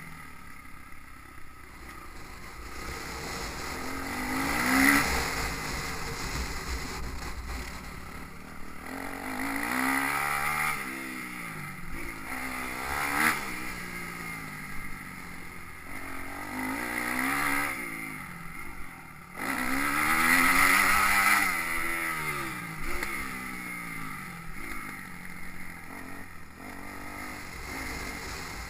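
Motocross bike engine revving hard and backing off again and again, its pitch climbing and falling with the throttle, with wind buffeting the microphone.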